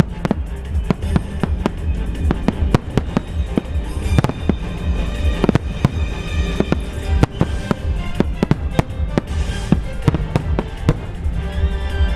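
Aerial fireworks going off in a rapid run of sharp bangs, several a second, over a continuous deep rumble of booms.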